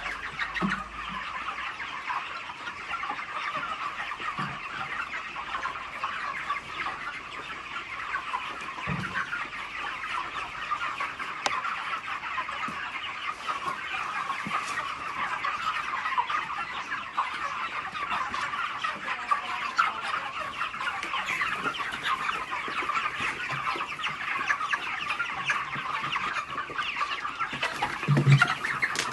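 Many chickens clucking at once, a dense, unbroken din of a large flock, with a few low thumps near the end.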